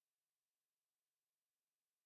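Silence: the soundtrack is empty, with only a faint even hiss.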